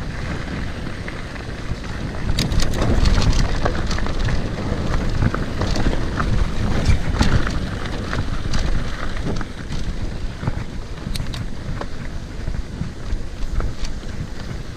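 Wind buffeting the microphone of a camera riding on a mountain bike as it rolls down a dirt trail, with tyre noise and scattered sharp clicks and rattles from the bike.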